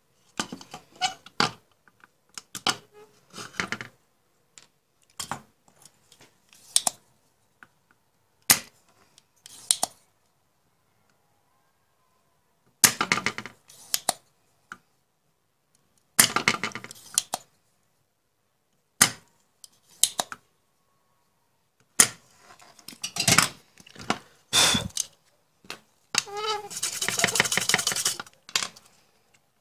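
Irregular clicks, knocks and short scrapes of a monitor power-supply circuit board and tools being handled and shifted on a hard tabletop, with a longer rattling scrape near the end.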